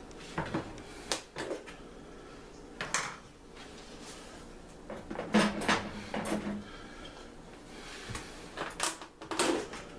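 Scattered light knocks and clicks of kitchen handling: a plastic margarine tub being set down on a plastic cutting board near the start, then occasional clatter of utensils and containers, with a few louder knocks about halfway through and near the end.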